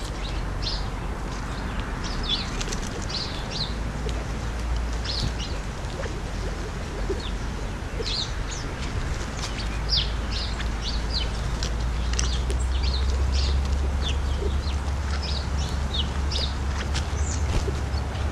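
Flock of California quail and sparrows feeding at close range, giving many short, high chirps scattered throughout, over a steady low rumble.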